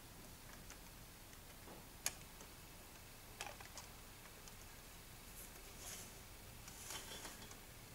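Faint, scattered clicks and light taps of plastic model-kit parts being handled and pressed together on a cutting mat. The sharpest click comes about two seconds in, a few smaller ones follow, and there is soft brushing near the end.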